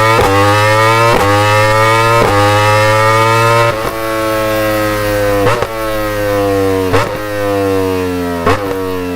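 Yamaha R-series sport bike's engine and exhaust running loud, its note slowly rising and then falling, broken by short sharp breaks every second or so.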